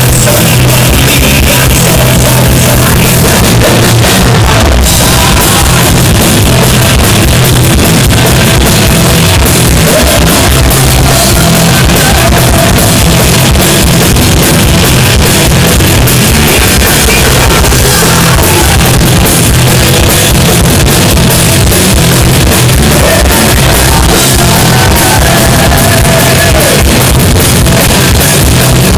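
Heavy metal band playing live: electric guitars, a drum kit and a singer, in a loud, overloaded recording.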